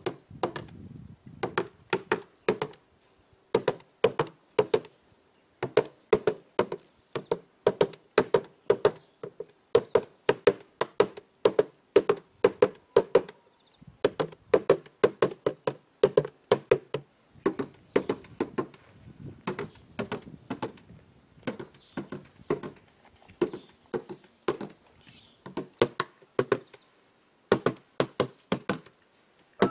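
A hand drum beaten in a running pattern of sharp strikes, mostly in groups of two or three, each with a short ring. The beating breaks off briefly about halfway through and again near the end.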